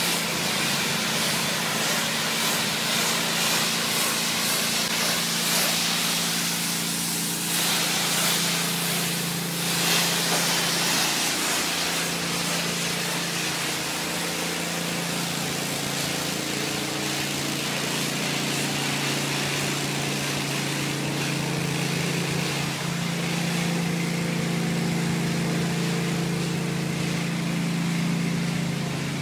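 Pressure-washing: a water spray hisses over a steady engine hum. The hiss is strongest for the first dozen seconds and then eases, while the engine keeps running evenly.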